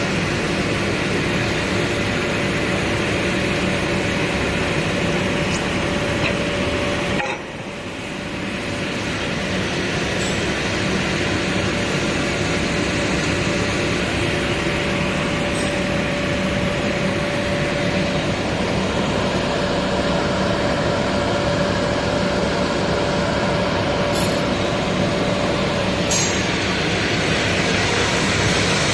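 Double-sided planer thicknesser running steadily with a constant motor hum and a steady tone. The sound drops briefly about seven seconds in, then picks up again.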